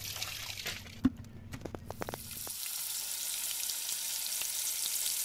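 Tap water running over fish pieces in a metal bowl, then a sharp knock and a few light clicks. From about halfway, hilsa steaks sizzle steadily as they fry in hot oil.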